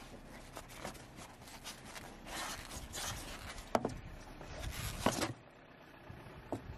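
Carpeted boot floor spacer of an MG4 being worked loose and lifted out by hand: rustling and scraping of the trim, with two sharp knocks a little over a second apart, after which it goes quieter.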